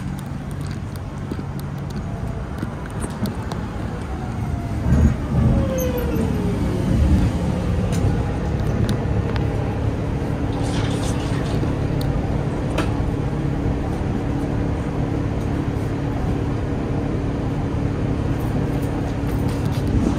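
Road traffic: motor vehicle engines running with a steady low hum, and a long falling whine a few seconds in.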